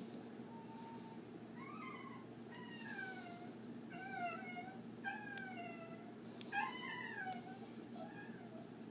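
A cat meowing over and over: about six short calls, each falling in pitch, over a steady low hum.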